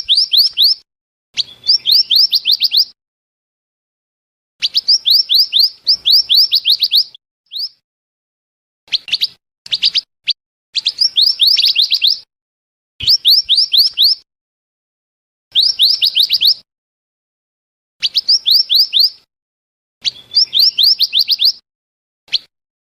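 Scarlet minivet (mantenan) lure call: repeated bursts of rapid, high whistled notes, each burst a second or two long, with short pauses between them.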